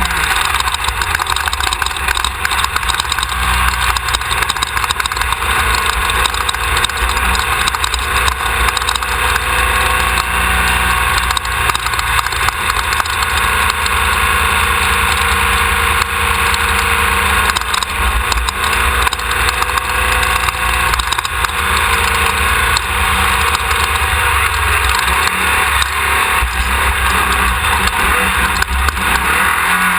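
Off-road race car's engine running continuously under load, mixed with a steady wash of wind and terrain noise and a constant patter of small knocks and rattles from the chassis on rough ground.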